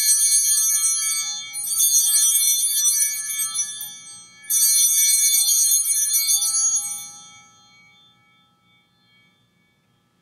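Altar bells ringing: a round already under way, a fresh round about one and a half seconds in and another about four and a half seconds in, the last dying away over a few seconds. They mark the elevation of the consecrated host at Mass.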